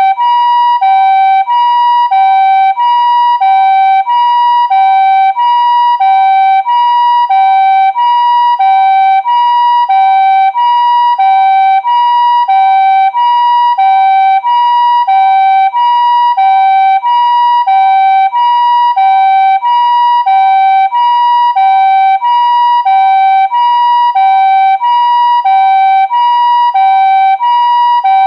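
Japanese ambulance siren sounding its two-tone "pee-paw" (ピーポー) call: a higher and a lower tone alternating steadily, one pair about every 1.3 seconds.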